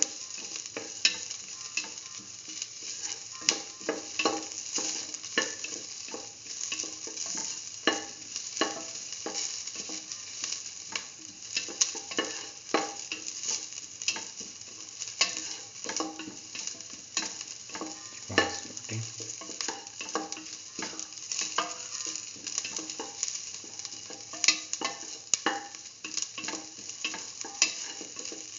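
Sliced onions sizzling in hot oil in a metal pan, with a spatula scraping and clicking against the pan several times a second as they are stirred and sauteed.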